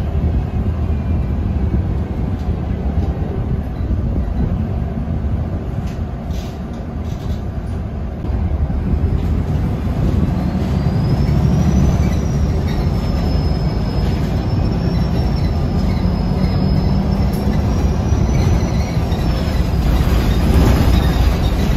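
Ride noise inside a MAN NG363F articulated diesel bus on the move: a steady low engine and road rumble that grows louder about halfway through. Over the second half a thin high whine wavers gently in pitch.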